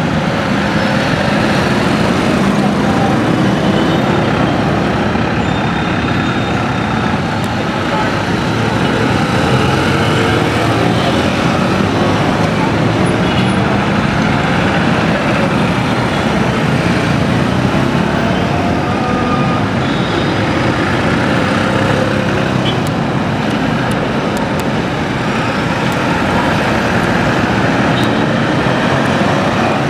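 Dense city street traffic: minibus taxis, motorcycles, cars and trucks idling and creeping through a junction, a steady din of engines with people's voices mixed in.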